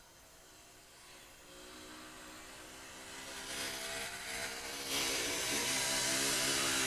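An engine growing steadily louder as it comes closer, its note holding a fairly even pitch, with a sudden step up in loudness about five seconds in.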